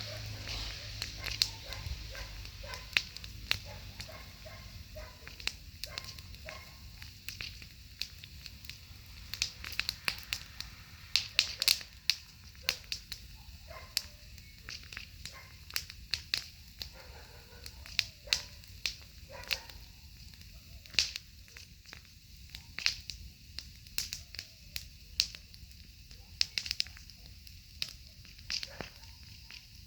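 Wood fire crackling, with frequent sharp, irregular pops and snaps.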